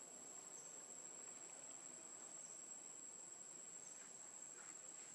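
Faint, steady high-pitched insect drone of a cricket or cicada, with a few faint short chirps over it.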